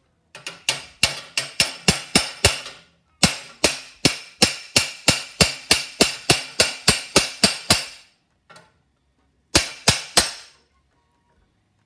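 Hammer blows on the end of a long steel threaded rod, driving a needle bearing out of a 1974 VW Beetle ball-joint front beam's torsion tube: a quick run of ringing metallic strikes, about four to five a second, with a short break about three seconds in and a final three blows near the end.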